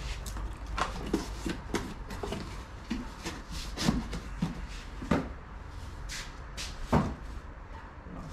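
Cardboard box and packaging being handled: rustling with scattered knocks and clatter, the sharpest knock about seven seconds in.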